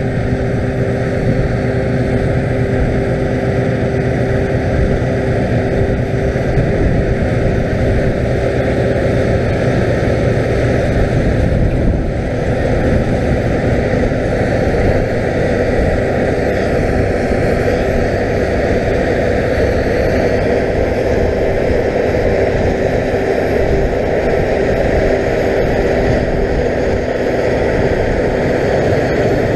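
Claas Lexion 670 TT combine harvester cutting and threshing barley: a steady, loud drone of engine and threshing machinery with a few held tones running through it.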